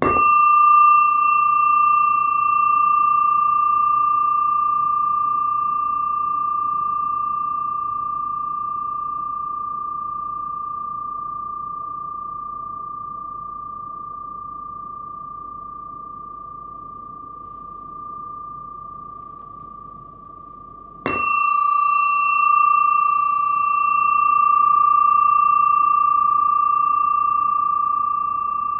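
Brass yin-yang flat bell (bilo) on a wooden base, struck twice with a mallet about 21 seconds apart. Each strike rings out in one clear, high, pure tone with a faint higher shimmer, fading slowly over many seconds.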